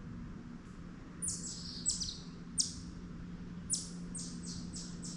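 A songbird calling in two quick runs of high, sharply falling notes, about five in each run, over a steady low hum.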